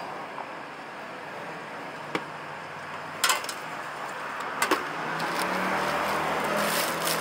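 Stainless-steel bowls clinking as they are handled on a street-food stall's counter, a few sharp clinks, then from about five seconds in a growing sizzling hiss of food deep-frying in oil.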